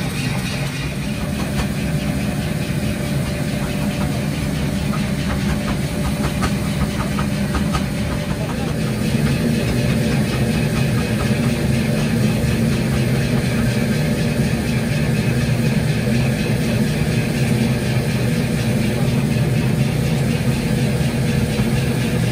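Red-hot forged sledgehammer head being quenched under a stream of water to harden it, sizzling and crackling as steam boils off. Behind it a steady machine drone runs, getting louder about nine seconds in.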